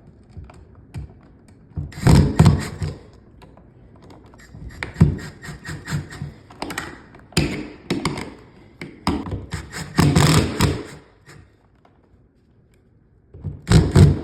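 An electrical outlet and its wires being pushed into the wall box: several bursts of knocking and tapping, separated by short pauses.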